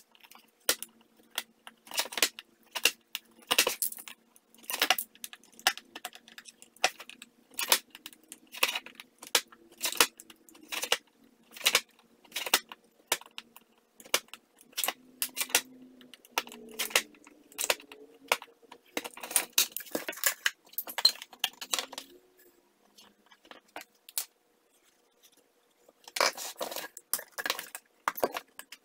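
Utility knife cutting a hole through a plastic bucket lid: a run of short, sharp scraping clicks, roughly one or two a second. They stop for a few seconds late on, then a quick cluster of scraping plastic sounds follows near the end.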